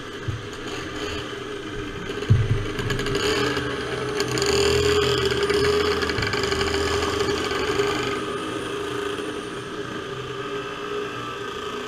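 125cc two-stroke racing kart engines idling in a queue, growing louder from about four to eight seconds in as the revs rise, with a single sharp knock about two seconds in.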